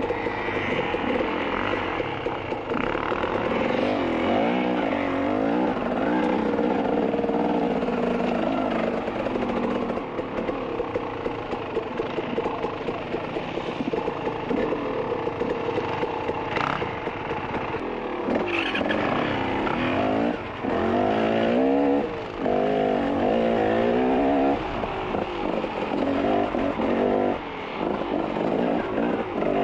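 Dirt bike engine being ridden on rough trail, its revs rising and falling every second or so under constant throttle changes. In the second half there are a few short, sudden dips in level.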